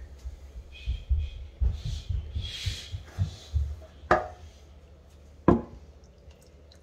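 A metal baking tray of turkey drippings being handled and lifted on a wooden counter: low bumps and rubbing, then two sharp knocks about a second and a half apart as the tray is brought over a skillet and tipped to pour the drippings in.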